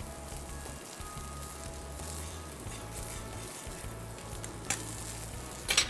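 Beaten eggs frying in olive oil in a pan on a hot grill, with a steady sizzling hiss. A short run of sharp clicks near the end.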